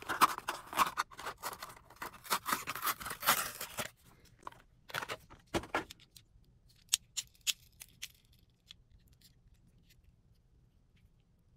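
Hot Wheels packaging being opened by hand: a quick run of crinkling, tearing and clicking of cardboard and plastic blister for about four seconds, then scattered single clicks that thin out.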